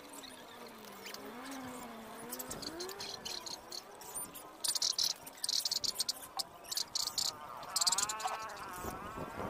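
Insects calling in a series of short, high, buzzing bursts through the second half.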